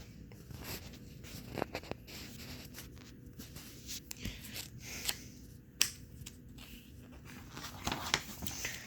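Faint rustling and scraping handling noise with scattered short clicks, as the catalog and its pages are handled.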